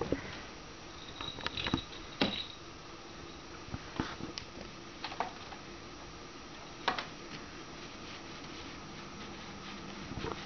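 A kitten leaping and batting at a hanging feather toy on a carpeted cat tower: scattered soft taps and knocks, a few in quick clusters, over a steady faint room hum.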